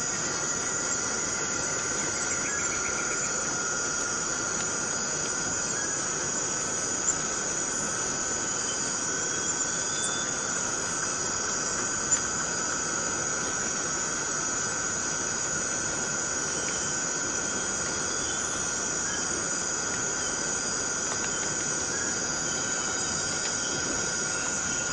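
Forest cicadas in a steady, unbroken chorus: a continuous shrill drone at two steady pitches, one high and one lower. Two brief clicks come through, about seven and twelve seconds in.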